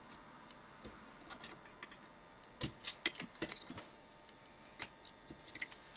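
Scattered light clicks and taps of hands handling a TV switch-mode power supply circuit board, with a few sharper clicks close together about halfway through.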